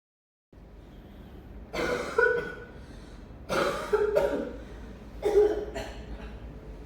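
A person coughing in three short bouts, each of two or three harsh coughs.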